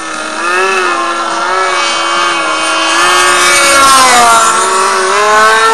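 Radio-controlled model airplane's motor and propeller running, its pitch wavering up and down with the throttle and then settling on a higher, steady note near the end.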